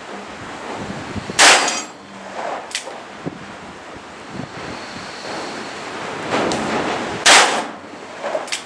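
Ruger Wiley Clapp .357 Magnum revolver firing .38 Special rounds: two loud shots about six seconds apart, each followed about a second later by a fainter sharp report, with wind noise between.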